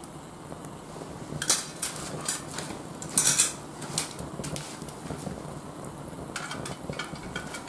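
Oga binchotan charcoal crackling and popping with sharp cracks as it heats in a chimney starter over an alcohol-stove flame, with a dense cluster of cracks about three seconds in and a run of smaller ticks near the end. Such popping is typical of binchotan that has taken up moisture.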